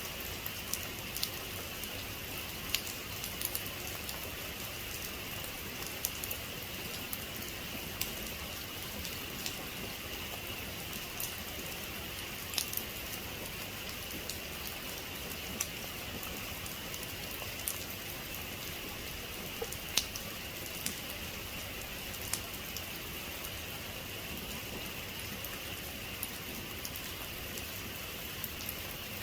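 Steady rain, with individual drops ticking sharply and irregularly on a hard surface close by; one drop near the two-thirds mark stands out louder than the rest.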